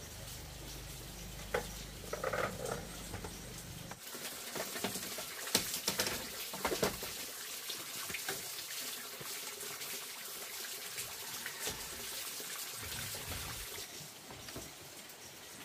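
Water running and splashing, with scattered knocks and clicks about four to seven seconds in.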